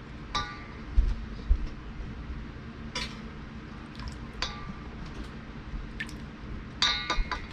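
Kitchen utensils handled on a tabletop: a few separate light knocks and clinks, some with a short ring, as a measuring cup is set down and a set of wooden measuring spoons is picked up, with a quick cluster of clinks near the end.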